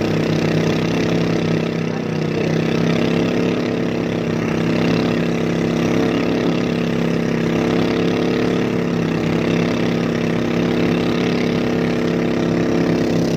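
A boat engine running at a steady speed, a constant even drone with only slight wavers in pitch.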